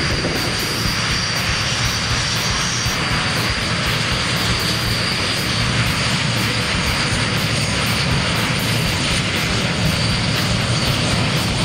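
Canadair CT-114 Tutor jet's turbojet engine running at taxi power as the jet rolls along the runway: a steady rush with a high whine that drops slightly in pitch about three seconds in.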